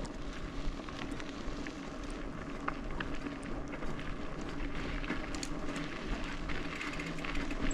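Mountain bike rolling over a dirt trail: steady tyre noise on dirt and gravel with scattered small clicks and rattles, and wind on the microphone.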